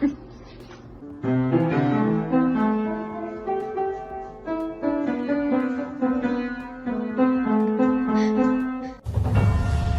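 Piano music playing a melody with chords, starting about a second in. Near the end it cuts abruptly to a different, denser piece of music.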